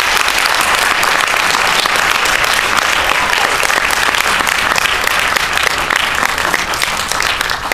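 Audience applauding: sustained clapping from many hands, thinning out into scattered claps near the end.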